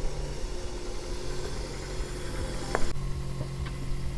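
Car engine idling with a steady low hum, and one sharp knock about two-thirds of the way through.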